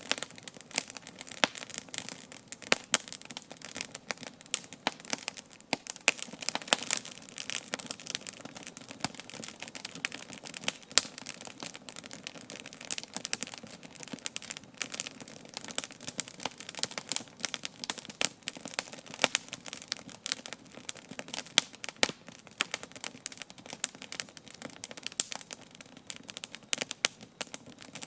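Wood campfire crackling, with irregular sharp pops and snaps, a few of them louder than the rest.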